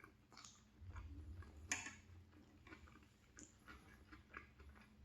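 Faint chewing of a mouthful of macaroni and cheese, with a few short wet mouth smacks or clicks, the sharpest about a second and a half in.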